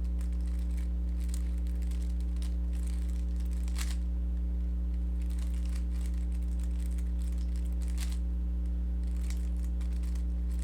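Scattered runs of faint plastic clicking and clattering from a Rubik's cube being turned through an OLL algorithm, over a steady electrical hum that is the loudest thing heard.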